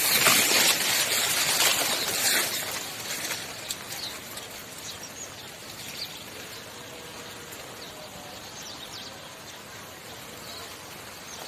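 Outdoor field ambience. A loud rush of noise over the first few seconds eases into a steady quieter hiss, with faint bird chirps here and there.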